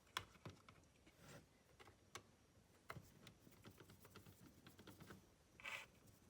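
Faint, scattered light clicks of a Torx screwdriver and small plastic switch parts being handled, with a brief soft hiss about five and a half seconds in.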